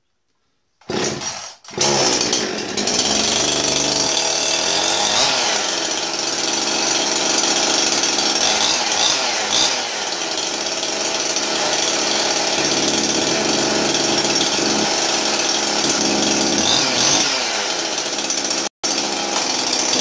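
Husqvarna 51 two-stroke chainsaw pull-started: a short burst about a second in, then it catches and runs steadily with small rises and falls in pitch. It starts easily after a piece of carbon has been cleared from its spark plug, so the engine is not burnt up.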